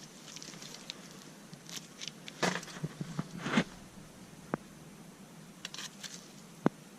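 Quiet hand-work noises on a brake caliper being greased: scattered rubbing and squishing about halfway through, then a light click and a sharper click near the end.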